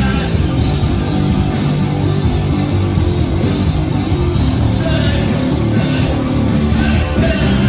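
Live heavy rock band playing loud through a large PA, with distorted guitars and a steady pounding drum beat.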